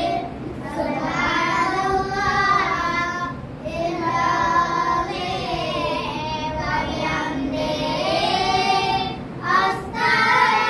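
Boys chanting a devotional recitation together in long, drawn-out melodic phrases, with short breaks about three and a half and nine and a half seconds in.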